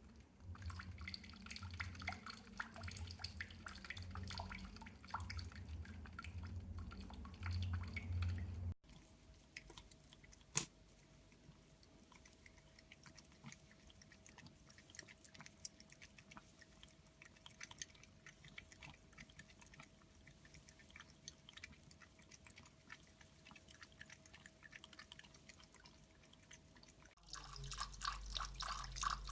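Cats lapping water at dripping and running taps: quick small licking clicks over dripping water. From about 9 s to 27 s it is quieter, with fine ticks and a faint steady hum.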